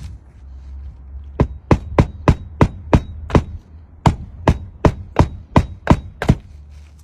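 Hammer driving roofing nails through an asphalt shingle into the roof deck with sharp, quick blows, about three a second, in two runs of about seven strikes with a short pause between. A low steady hum sits underneath.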